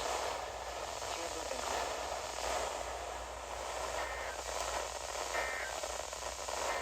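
Radio static: a steady hiss over a low hum, with two faint short tones about four and five and a half seconds in.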